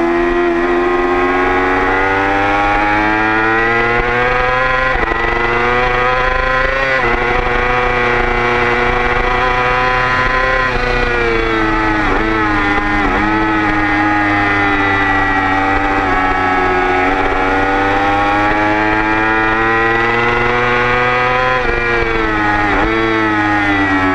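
Motorcycle engine at high revs on a racing lap, heard from an onboard camera. The revs climb, with quick upshifts about five and seven seconds in, and fall away through downshifts around the middle and again near the end.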